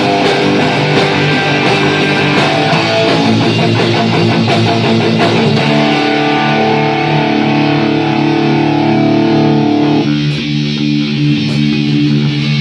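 Punk rock band playing, with distorted electric guitar and drums. About six seconds in, the drums drop out and the guitar holds long ringing chords, changing chord about four seconds later.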